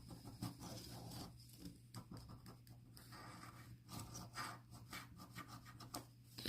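Faint, irregular scratching and rubbing of a scratch-off lottery ticket's coating being scraped away.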